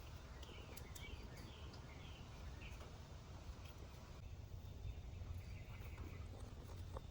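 A bird chirping outdoors: a quick series of short chirps in the first three seconds, then quieter, over a steady low rumble of wind on the microphone.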